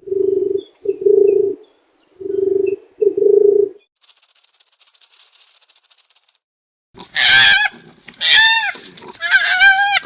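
A run of animal calls: four short, steady, low honk-like calls in two pairs, then a high hiss lasting about two seconds, then three higher, wavering calls.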